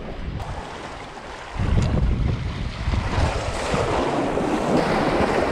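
Wind gusting over the microphone with waves washing against jetty rocks. The wind rumble jumps louder about a second and a half in, and the wash of the surf fills in over the last few seconds.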